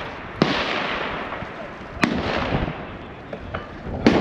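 Three rifle shots about two seconds apart, each a sharp crack followed by a long rolling echo across the range.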